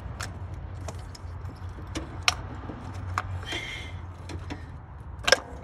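Scattered metallic clinks and taps of a spark-plug socket and extension being worked in a car engine bay, a handful of separate knocks with the loudest a little before the end.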